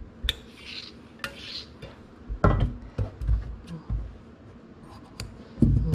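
Handling sounds of ironing and cutting: scattered knocks and clicks, with a couple of short hisses in the first two seconds, as a steam iron presses fusible interfacing onto a fabric hem, then scissors snip a strip of interfacing.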